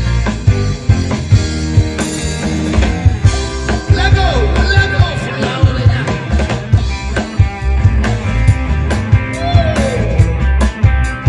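A band playing rock-style music with a steady drum beat and bass, and a melody line that bends up and down in pitch.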